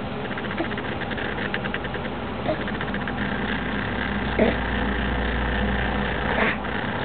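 A steady mechanical hum, with a couple of short baby vocal sounds about four and a half and six and a half seconds in.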